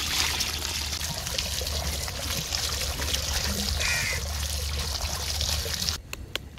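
Water from a hose pouring and splashing onto boiled macaroni in a plastic colander, a steady gushing that stops abruptly about six seconds in, followed by a few light clicks.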